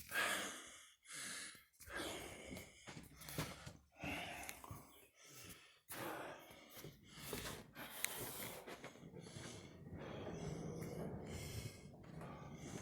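A person breathing close to the microphone, in irregular short puffs, with rustling handling noise.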